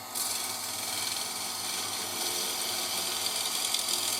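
Turning tool cutting a wooden blank spinning on a wood lathe: a steady hiss of cutting that starts just after the opening, over the lathe motor's steady hum.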